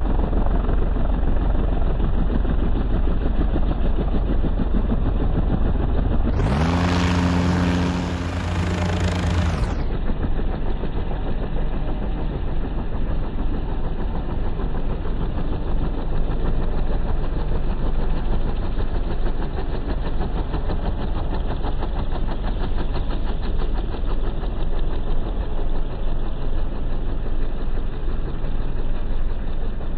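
Light helicopters running close by: a steady, noisy drone of engine and rotors. Between about 6 and 10 seconds a brighter stretch adds a low steady hum of several tones.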